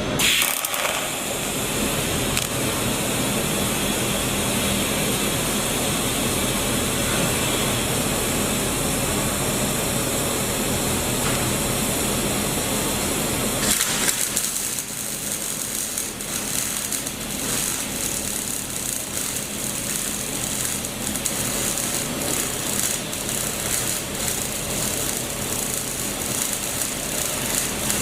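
TIG welding arc on pipe, buzzing and crackling steadily with a low electrical hum underneath; the sound changes slightly about halfway through.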